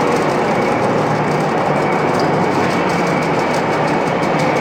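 A CNC horizontal boring mill running and machining a large steel workpiece: a loud, steady machine noise with a fast, even ticking of about five to six strokes a second and a thin steady whine.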